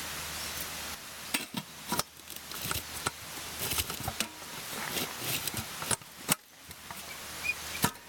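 Knocks, clinks and scrapes of camp gear being handled: a felt heat mat set down and a metal lid pressed onto a galvanized steel can, in a series of separate sharp knocks with rustling between them.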